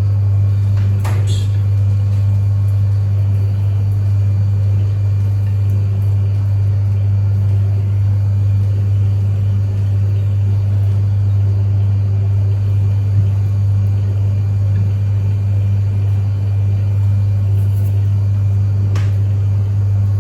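A steady low hum with no change in pitch, with faint clicks about a second in and near the end.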